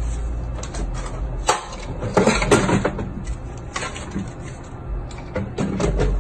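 Muffled audio from store surveillance footage: a steady low hum with scattered clicks and knocks, and a louder cluster of knocks and rustling about two seconds in.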